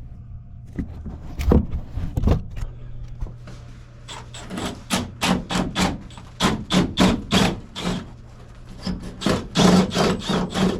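Quick series of scrapes and knocks against wood: two separate knocks early on, then runs of short strokes at about three a second.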